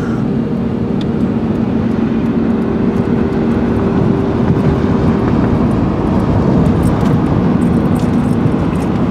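Steady engine hum and road noise heard from inside a moving car's cabin.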